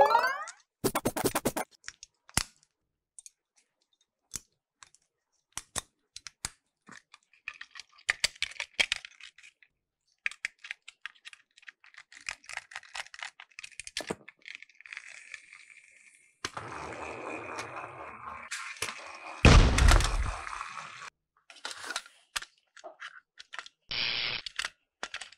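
Plastic clicks, taps and scratching as a Thomas & Friends toy engine is handled and unscrewed with a screwdriver. A louder, fuller stretch with a deep thud builds a little past the middle.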